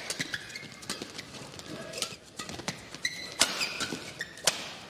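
Badminton rally: rackets strike the shuttlecock in sharp cracks, several to a couple of seconds apart, the hardest about three and a half and four and a half seconds in. Short high squeaks of court shoes come in between.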